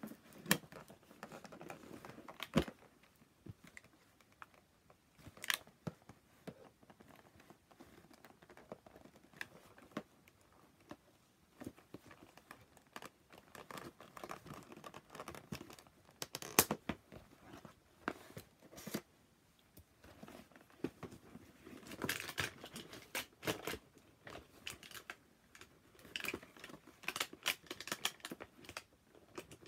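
Scissors snipping and a toy's cardboard box and packaging crinkling and tearing as it is cut open by hand. Scattered sharp clicks and rustles come throughout, busiest near the end.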